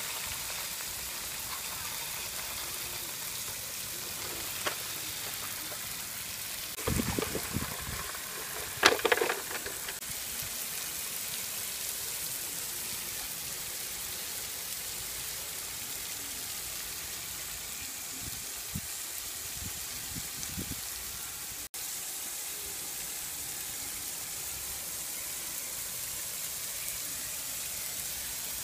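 Steady hiss of rain falling on wet paving stones, with a couple of brief louder bumps about seven and nine seconds in.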